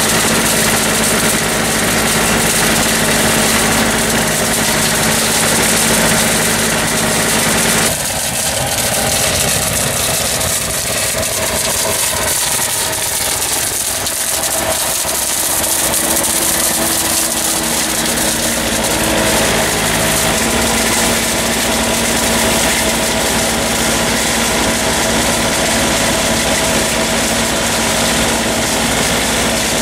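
Tractor engine running steadily while driving a Clemens EL 50 leaf remover through a vine canopy: a constant machine hum with several held tones. The sound changes abruptly about eight seconds in, the deep part thinning, and fills out again around twenty seconds in.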